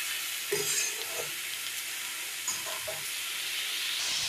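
Strips of bottle gourd sizzling in hot oil in a kadai (wok), with a steady frying hiss. A spatula scrapes and knocks against the pan several times as the vegetables are stirred.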